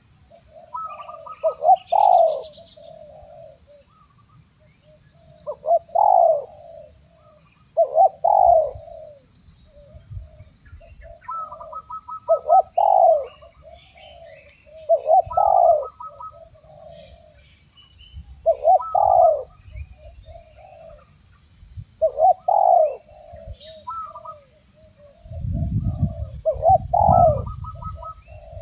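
Spotted dove (tekukur) cooing, a phrase of a few stuttered higher notes and a deeper coo repeated about every three to four seconds, roughly eight times.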